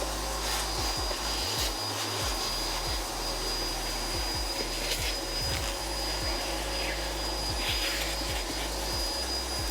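Vacuum cleaner running steadily, a high motor whine over rushing air, sucking up the debris from cutting notches in a door panel.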